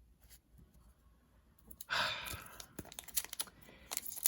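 A breathy sigh about two seconds in, followed by light crinkling and clicking as trading cards and a foil booster-pack wrapper are handled.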